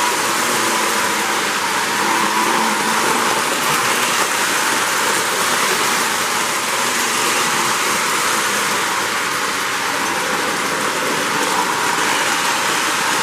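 O-gauge Lionel model freight train running on three-rail track behind the 736 steam locomotive, a steady, even noise of metal wheels rolling on the rails and the locomotive's motor, with no pauses.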